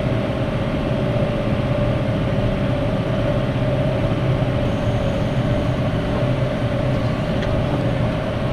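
Tractor engine and round baler running steadily together, a continuous drone with a constant mid-pitched hum, as the baler picks up barley straw.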